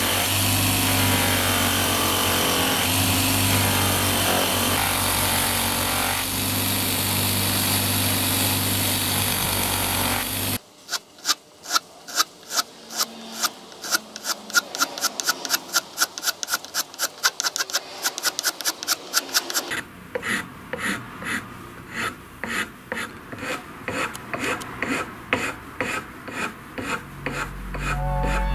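An electric motor drives a spinning abrasive wheel, which grinds steadily against a taped workpiece with a constant hum. About ten seconds in the sound changes abruptly to a hand file rasping across the end of a dark bar, in quick, regular strokes about two to three a second. The strokes turn lighter and less even later on.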